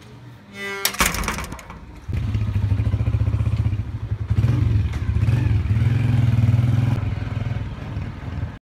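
A metal gate clanks and scrapes as it is opened about a second in. About two seconds in a small motorcycle engine starts and runs steadily, getting louder midway, then the sound cuts off just before the end.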